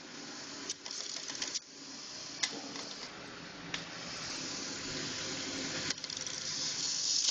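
Industrial belt sander running with a steady gritty hiss over a low hum, broken by scattered sharp ticks. The hiss grows louder toward the end and then cuts off suddenly.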